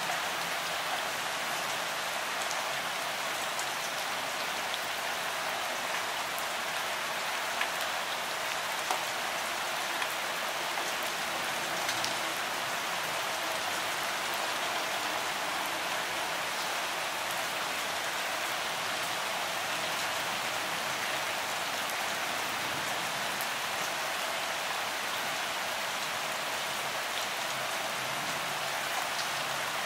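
Steady rain falling, an even hiss with a few separate drop ticks standing out now and then.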